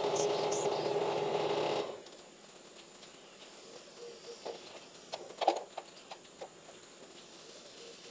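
Branson 2515h tractor's diesel engine idling steadily, then shut off about two seconds in. After that come a few short, light knocks.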